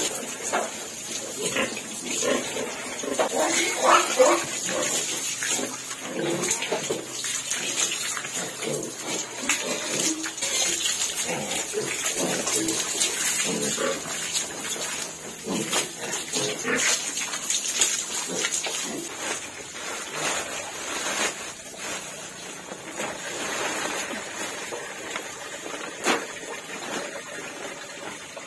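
Animal calls, several in the first ten seconds and sparser after, over a steady high-pitched hum.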